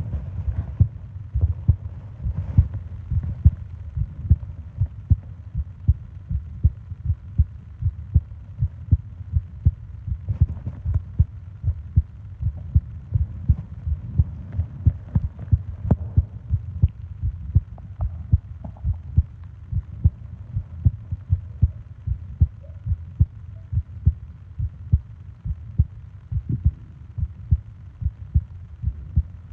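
A person's heartbeat, close-miked: a steady, even rhythm of low thumps.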